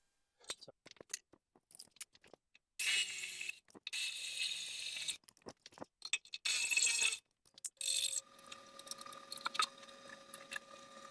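Cordless drill boring through the sheet-steel base of a lathe stand with a twist bit, in four short bursts. Small metal clicks and taps of a hex key and screws follow as the coolant pump is refitted, over a faint steady hum.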